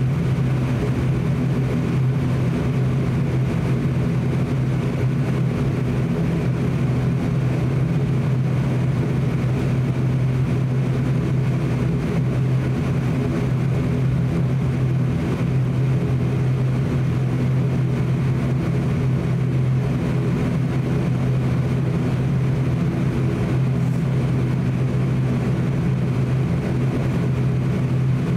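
ATR 42-600 turboprop engine and propeller at taxi power, heard from inside the cabin: a steady, even drone with a strong low hum.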